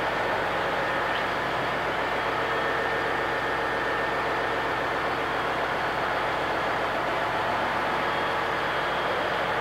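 Steady, unchanging drone of a container ship's machinery in the steering gear room, with a constant hum tone running through it.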